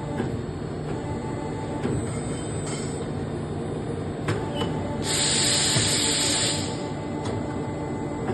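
CNC pipe bending machine running with a steady mechanical hum and a few light knocks, and a burst of hissing air lasting about two seconds just past the middle.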